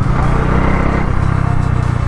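Bajaj Dominar 400's single-cylinder engine running steadily under way, its exhaust note a low, even hum beneath a haze of riding noise.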